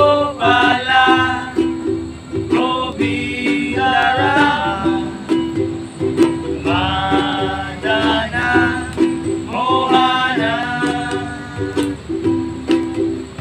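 Kirtan music: a strummed string instrument plays a steady chord rhythm under a voice singing a mantra in four drawn-out phrases with short pauses between them.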